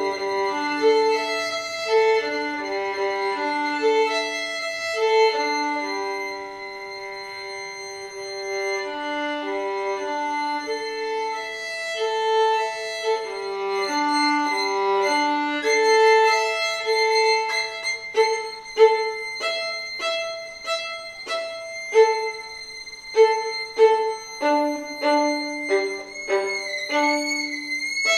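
Two violins playing a duet, in two interweaving lines of held notes that turn, about two-thirds of the way through, into short, sharply attacked detached strokes with strong accents.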